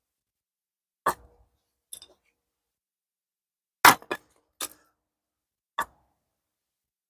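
A few separate sharp wooden knocks of oak firewood being split with an axe, the loudest about four seconds in.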